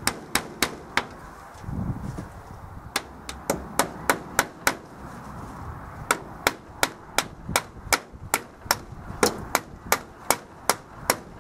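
Claw hammer driving a nail through a wooden upright into a timber door frame: sharp strikes, a few at first, then a short run, then a steady run of about three blows a second.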